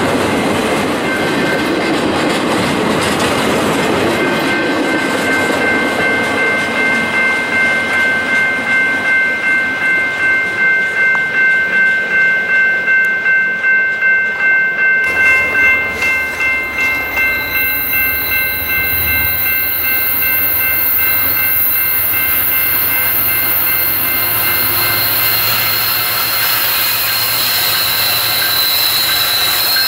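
Double-stack intermodal freight train passing, its wheels squealing steadily and clicking over rail joints at about one and a half beats a second, the clicks fading as the end of the train goes by. About halfway through this gives way to a steady rumbling noise as a BNSF freight led by diesel locomotives approaches.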